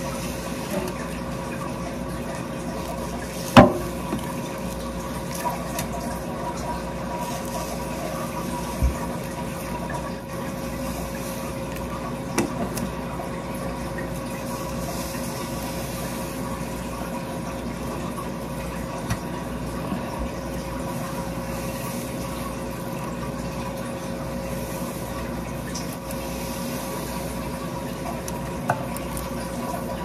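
Water running steadily from a tap into a stainless steel sink, with a constant hum under it. A few short sharp knocks stand out, the loudest a few seconds in.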